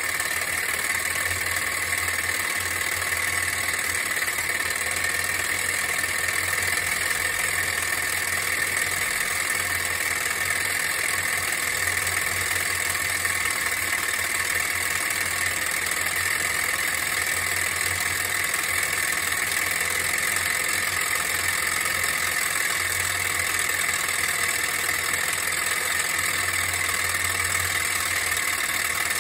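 Meccano MEC1 toy steam engine running steadily under steam, driving a model windmill through chain-and-sprocket reduction gearing; an even, unchanging running noise with a hiss.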